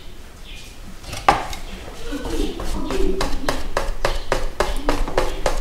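Wire whisk beating thick mandazi batter in a bowl, its wires knocking against the bowl in a regular rhythm of about four strokes a second from about two seconds in. One sharper tap comes a little over a second in.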